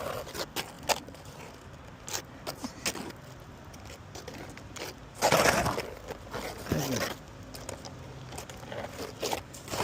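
Asphalt roof shingles snapping and crackling as they are pried up, with several sharp cracks early on and a louder crackling scrape about five seconds in; the shingles are breaking rather than lifting out whole.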